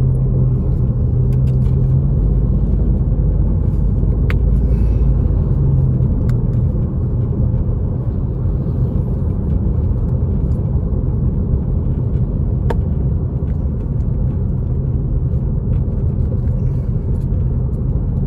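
Steady low rumble of a car being driven, heard from inside the cabin: engine and road noise.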